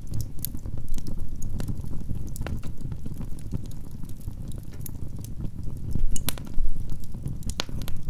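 Wood fire burning in a fireplace: a steady low rumble of flames with frequent sharp crackles and pops from the burning logs and pine cones, two of them louder in the last two seconds.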